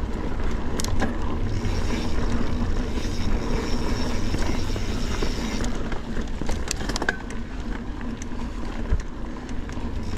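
Transition Spur mountain bike rolling along dirt singletrack: steady tyre and trail noise with wind buffeting the microphone, and a few sharp clicks and rattles from the bike, about a second in and again past the middle.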